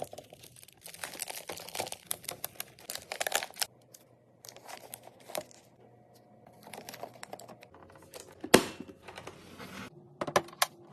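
Plastic packaging crinkling and rustling while items are handled and stocked into a mini fridge, with many small clicks and taps as they are set in place. There is one sharp, louder knock about eight and a half seconds in and a few quick clicks near the end.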